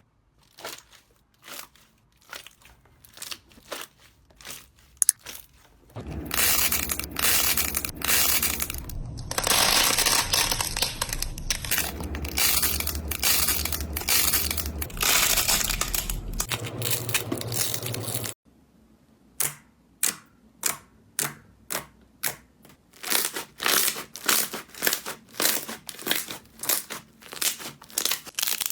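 Slime being squeezed and pressed by hand, crackling and crunching. First come scattered crackles, then a dense continuous stretch that stops abruptly, then crackles about twice a second.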